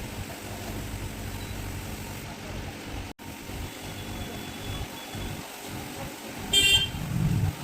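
Steady road-traffic rumble with a short car-horn toot near the end, followed by a louder passing-vehicle rumble.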